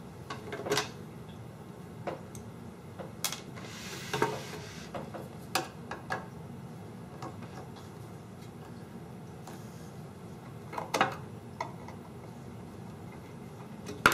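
Scattered metallic clicks and scrapes of a screwdriver working at the small screws in the metal case of a 1949 R.C. Allen Model 75 mechanical adding machine. A short scraping rasp comes about four seconds in, louder clicks around eleven seconds, and a sharp clack right at the end.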